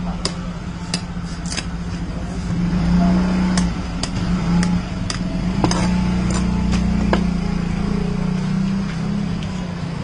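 A large knife chopping and shaving the husk of a young coconut on a wooden block: about a dozen sharp, irregularly spaced knocks over a steady low drone.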